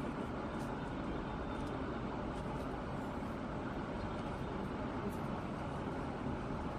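Steady city traffic noise, a continuous even rumble with no distinct events.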